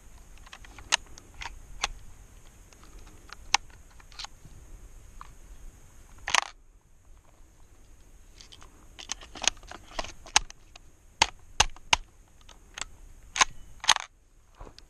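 Semi-automatic shots from a Kriss Vector 9mm pistol, heard as short sharp cracks. There are a few scattered shots, one longer blast about six seconds in, then a quick string of about ten shots roughly half a second apart.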